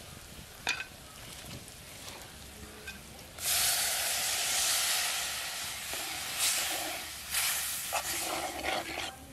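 Onions and masala frying quietly in a pot, then water poured into the hot oil: a sudden loud hiss of sizzling about three seconds in that eases off over a few seconds. A second burst of sizzling near the end as the mix is stirred with a spoon.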